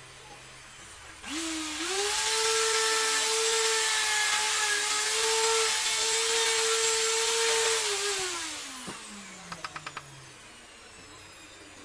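Handheld corded electric drill spinning up about a second in, running at a steady high whine while boring into a small piece of kemuning wood, then winding down with falling pitch. A few light clicks follow near the end.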